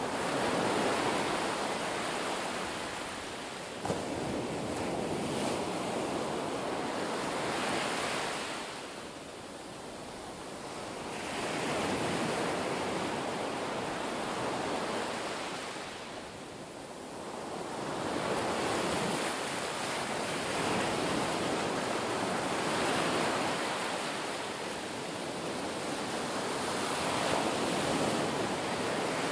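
Shallow-water surf washing in and out, picked up by a submerged camera: a steady hiss that swells and fades over several seconds at a time. A single sharp knock about four seconds in.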